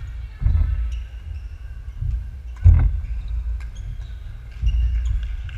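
Badminton rally on a wooden sports-hall floor: players' feet thud on the court about half a second in, around two seconds and near the end, with one sharp, louder smack a little before the middle. Faint high shoe squeaks come and go.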